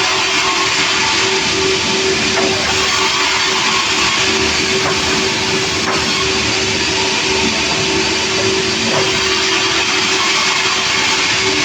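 Sawmill machinery running steadily: a loud, even hiss-like noise over a constant hum.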